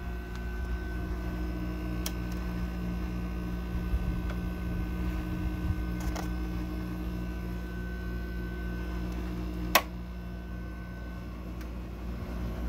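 Haier 5,000 BTU window air conditioner running with a steady hum, its front grille vibrating. Its fan runs slow, which the owner puts down to bearing slip. A sharp click comes near the end, and one of the steady tones stops with it.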